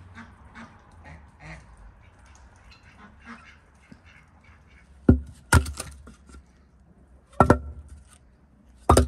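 Loud, sharp knocks: two close together about five seconds in, another about two seconds later, and a quick double knock near the end.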